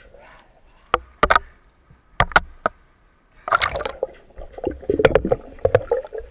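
Underwater handling of a speargun and a speared fish: sharp clicks and knocks, then about three and a half seconds in a gush of air bubbles followed by a run of quicker knocking and clicking.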